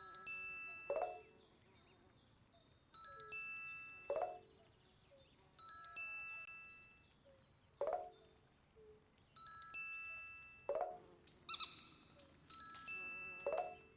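Magic sparkle sound effects repeating about every three seconds. Each time, a short swooping lower sound is followed by a bright chime of several ringing high tones that fades away.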